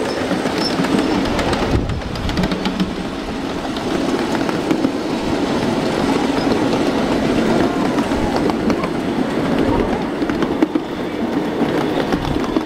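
A 7½-inch gauge ride-on miniature train running with passengers aboard: steel wheels rumbling and clicking on the track, under a steady hum.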